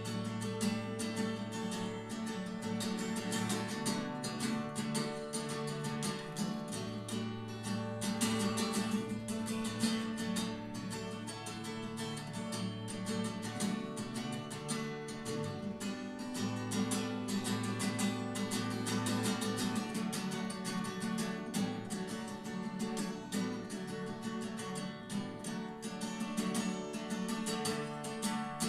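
Acoustic guitar playing on its own, plucked and strummed chords with no singing: the instrumental passage of a folk song.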